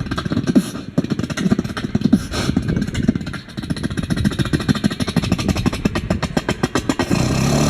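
A street beatboxer performing: quick mouth-made kick and snare beats, with a fast run of clicks about two-thirds of the way in and a low hummed bass note near the end.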